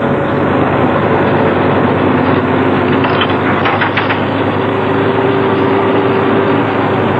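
Aerial tramway cabin running along its cable: a steady mechanical rumble with rushing air. A faint steady whine joins in about halfway.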